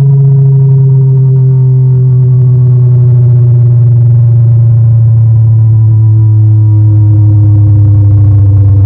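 Kali Audio LP6 studio monitor playing a loud, low bass test tone that slowly glides downward in pitch, with fainter higher overtones falling along with it.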